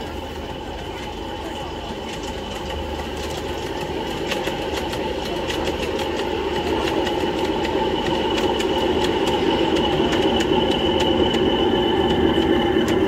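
Miniature ride-on passenger train approaching and growing steadily louder: a steady running hum with a high whine, and the wheels clicking over the track from a few seconds in.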